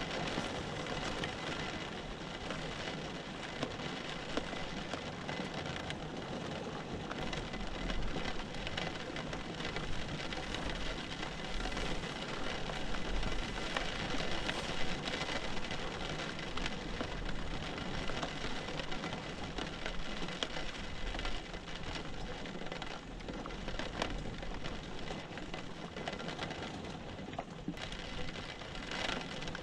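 Steady rain falling, with many small drops pattering on a surface.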